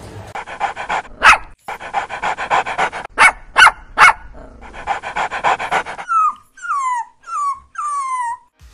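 Rapid, even huffing with a few sharp short cries, then a domestic cat meowing four times near the end, each meow falling in pitch.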